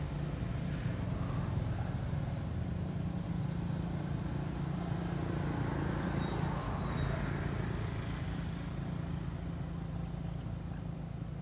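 Steady low mechanical rumble of a running motor, with a brief faint high chirp about six and a half seconds in.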